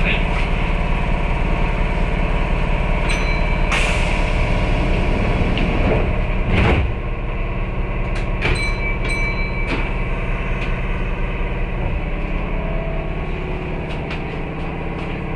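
Kintetsu 8600-series electric train's steady hum, with scattered clicks and two short high beeps. A louder knock comes about seven seconds in, after which the hum is a little quieter.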